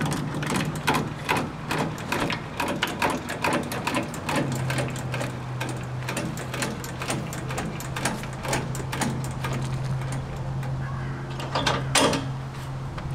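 Boat trailer hardware being worked as the boat is set up and unhooked from a truck: rapid, uneven metallic clicks and clanks over a steady low hum.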